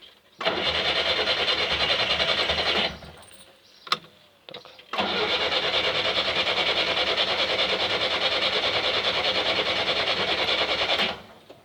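LuAZ-969A's starter cranking the engine in two long attempts, the second lasting about six seconds, with a click between them; each stops abruptly without the engine catching.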